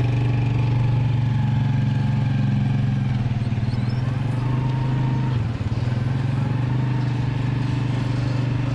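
Motorcycle tuk-tuk engine running steadily under way, a loud low drone with a short dip in the engine note about five and a half seconds in.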